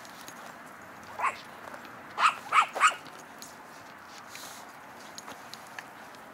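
Small dog barking: one short, high bark a little over a second in, then three quick barks in a row about two seconds in.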